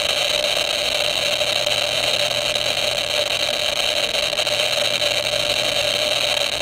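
Eberline RM-14 radiation ratemeter's audio speaker clicking so fast that the clicks run together into a steady rush, as its HP-260 probe reads about 15,000 counts per minute from a radium-painted toggle switch.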